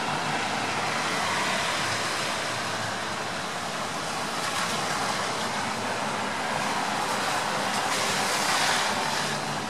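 Steady rain falling: an even hiss, swelling louder for a moment near the end.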